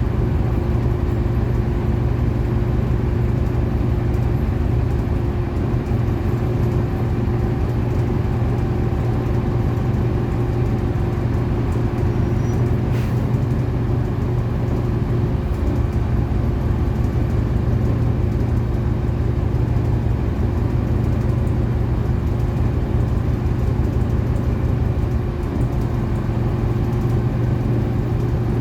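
City bus running steadily between stops, its engine giving a constant low drone with a few steady tones over it.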